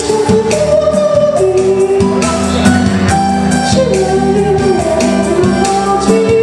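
A song: a voice sings long held notes over a backing track with a bass line and a beat, amplified through the stage sound system.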